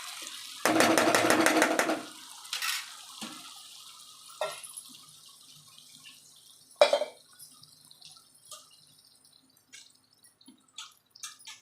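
Vegetables cooking in oil in a kadhai: a loud burst of sizzling and crackling about a second in, then a fading bubbling hiss with scattered pops and a sharp clink a little before seven seconds.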